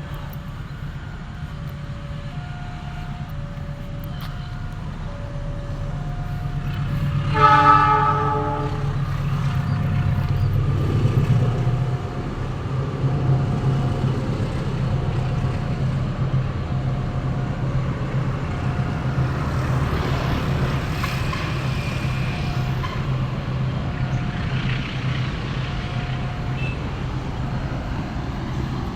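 A vehicle engine running steadily, with one horn blast of about a second some eight seconds in. Faint two-tone beeps alternate about once a second behind it.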